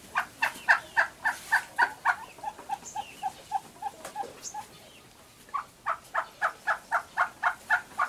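Domestic turkey hen yelping: runs of short, evenly spaced calls at about five a second. The calls soften and go lower in the middle, stop for a moment a little past halfway, then start again.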